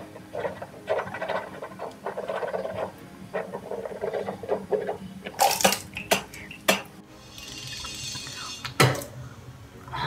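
Background music with a steady beat, overlaid about halfway by a few sharp clicks and knocks from handling, then a hiss lasting over a second and a single loud knock near the end.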